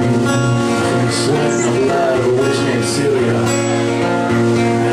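Live band music led by a strummed acoustic guitar with an electric guitar playing along, loud and continuous.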